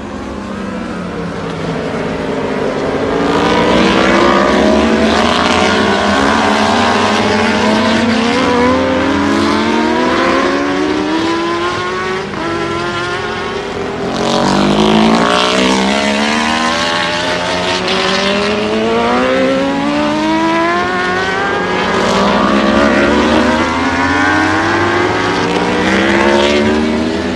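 World Superbike 1000cc racing motorcycles accelerating hard past one after another, each engine's pitch rising in repeated sweeps broken by quick upshifts.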